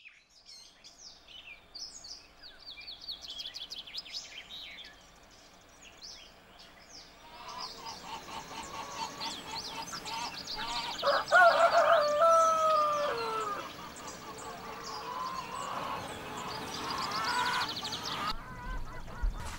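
Small birds chirping, then a flock of chickens and ducks calling, with a rooster crowing loudly about eleven seconds in, a long call that drops in pitch at its end.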